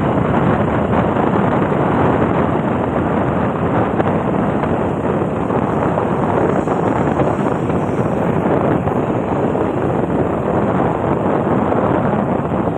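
Steady wind rush buffeting the microphone, mixed with the road and engine noise of a vehicle driving along at speed.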